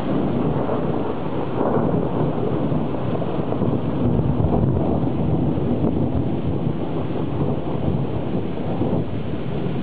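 Thunder rolling in a long, continuous low rumble during a thunderstorm, with rain noise beneath it. It swells slightly about two seconds in and again around four to five seconds.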